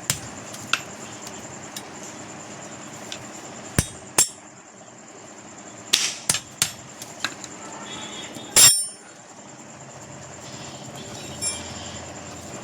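Hammer striking metal in a blacksmith's shop: about ten sharp clanks at uneven intervals, the loudest a little past halfway.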